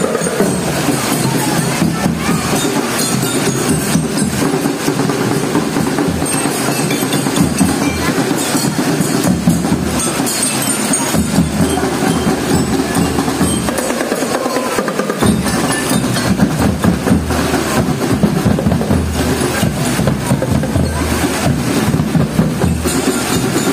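Marching drum band playing in the street, drums beating a steady rhythm, with heavy rain hissing over it.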